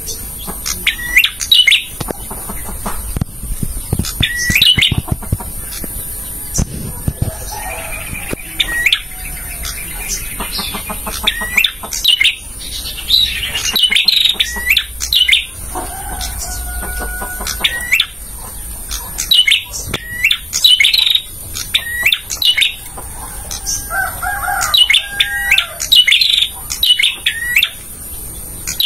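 Male prenjak (prinia) singing: sharp, high chirps repeated in rapid clusters, with a few lower warbled calls mixed in now and then.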